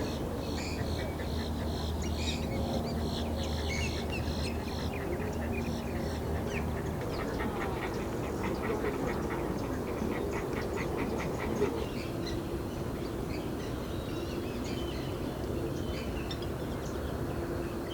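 Several wetland birds calling at once: many short high calls, with a run of fast repeated notes in the middle. A low steady hum lies underneath for the first several seconds.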